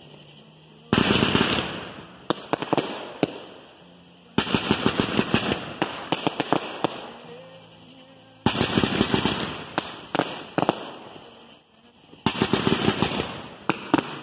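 Aerial fireworks going off in four bursts of rapid crackling pops, one about every four seconds, each lasting a second or two and trailed by a few single sharp bangs.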